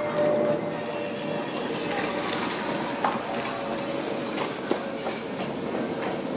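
A car driving away through shallow floodwater: a steady rumble of engine and tyres on the wet road, with water sloshing.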